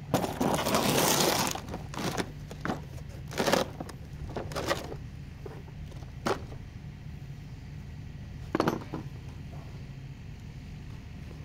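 Metal tools clattering as a hand rummages in a plastic toolbox for about a second and a half, followed by several separate clinks and taps of tools, the loudest about three and a half seconds in. A steady low hum runs underneath.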